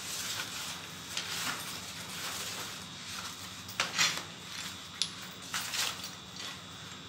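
Rustling and crinkling of a black fabric chess bag and white pouches as they are handled and pushed into the bag, in short irregular bursts with the loudest rustles about four seconds in.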